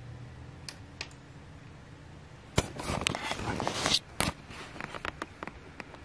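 Dell laptop power button, freshly repaired, clicking as it is pressed. A few small clicks, then a sharper click about two and a half seconds in, followed by a second or so of noise and another click just after.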